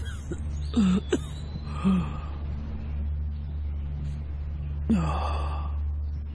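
An elderly man coughing and gasping in short hoarse fits: two about a second apart, then a longer rasping one near the end, over a low steady hum.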